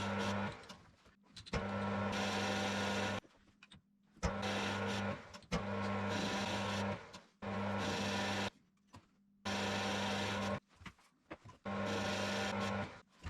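Electric power tool motor switched on and off in short bursts of one to two seconds, about six times, each starting and stopping abruptly with a steady hum and whir.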